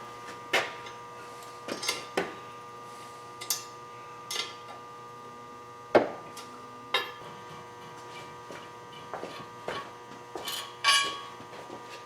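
Scattered metal clinks and knocks, a dozen or so separate hits, as a holding fixture is worked off a differential's pinion yoke, over a steady electrical hum.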